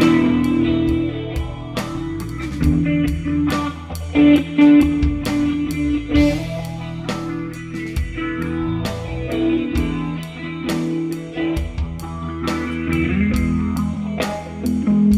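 Background music: an instrumental blues-rock piece led by guitar, with drums keeping a steady beat.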